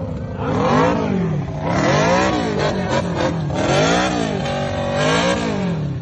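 Motorcycle engine revved again and again, its pitch climbing and falling on each blip, a little over a second apart.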